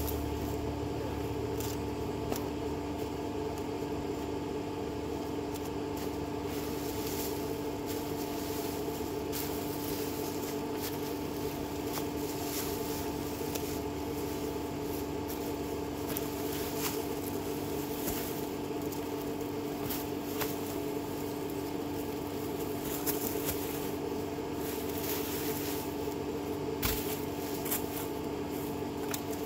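Vehicle engine running at a steady, unchanging pitch, with scattered clicks and knocks over it.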